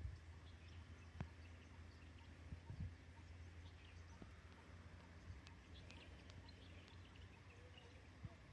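Near silence: quiet outdoor ambience of faint, scattered bird chirps over a low steady hum, with a few soft knocks about a second in and near three seconds in.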